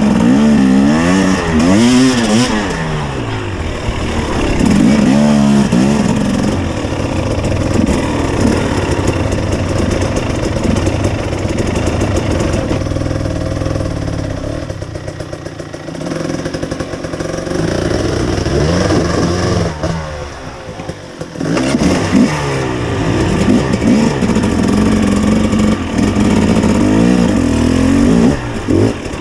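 Two-stroke KTM enduro motorcycle engine revving up and down in short bursts as it climbs a rocky gully at low speed. It drops back briefly about twenty seconds in, then revs again.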